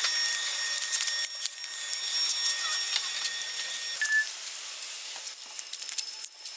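Steady hiss with many small clicks and scrapes: rubbing and handling noise from an action camera worn on the body as the wearer walks, with air hiss behind it.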